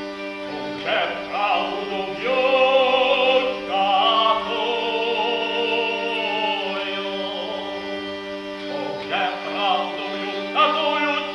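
Man singing a Ukrainian folk song to the lira, a Ukrainian hurdy-gurdy, whose drone strings sound steadily under the voice. A long held sung phrase runs through the middle.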